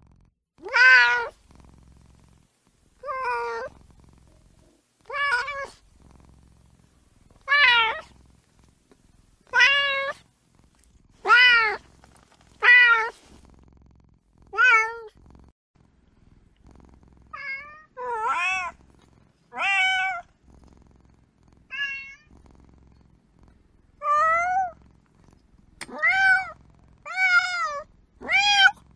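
Kitten meowing over and over, about sixteen short meows spaced one to two seconds apart. Each call rises and then falls in pitch.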